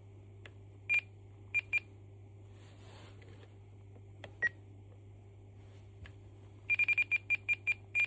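Spektrum RC transmitter giving short, high menu beeps as its settings are scrolled and selected: a few single beeps at first, then a quick run of about a dozen near the end. A faint steady hum sits underneath.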